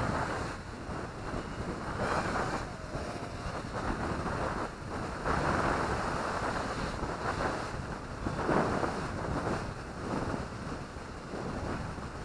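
Strong wind buffeting the microphone in gusts, a rushing noise that swells and fades every second or two.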